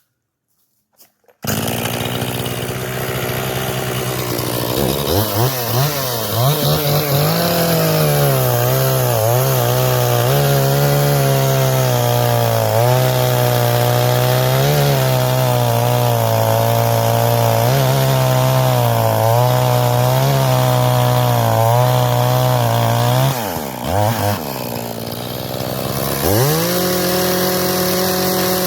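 Echo CS-500P two-stroke chainsaw running, just after a carburetor rebuild and adjustment. It starts about a second and a half in, climbs to high revs and holds there, falls back and wavers about three-quarters of the way through, then revs up and holds again near the end. The owner says it is acting like it has an air leak.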